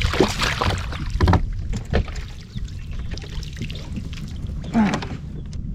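Handling noises aboard a fishing kayak: a few short knocks and rustles over a steady low rumble.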